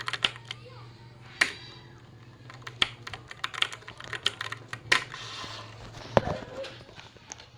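Keys of a wireless keyboard clicking in irregular runs of typing, some strokes sharper and louder than others, with a low thump about six seconds in. A faint low hum runs underneath.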